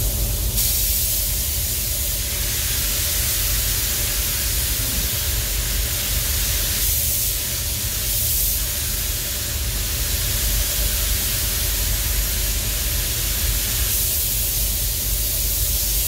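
Compressed-air paint spray gun hissing as paint is sprayed onto a coach bus's body. The hiss starts abruptly and swells and eases a little in places, over a steady low hum.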